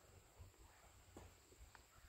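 Near silence: a faint low rumble with a couple of faint clicks.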